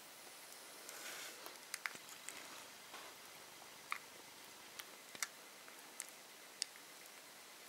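Faint, irregular wet clicks and smacks of newborn Italian Greyhound puppies suckling at their mother's teats, with a brief soft rustle about a second in.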